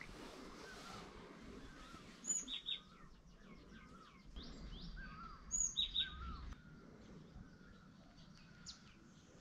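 Small birds chirping, with two quick runs of three or four sharp high calls a few seconds apart standing out over fainter chirps and low background noise.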